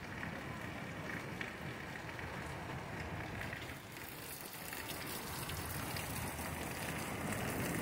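Heavy rain falling steadily, a continuous hiss that grows slightly brighter and louder about halfway through.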